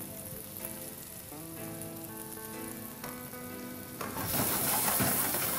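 Boiled potatoes frying in a little hot oil in a wide aluminium pan, a soft sizzle that gets clearly louder about four seconds in.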